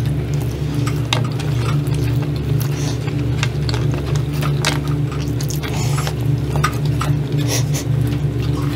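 Scattered small crackles and clicks of bare hands picking apart crispy fried dried fish and fried rice on a table, over a steady low hum that is the loudest sound throughout.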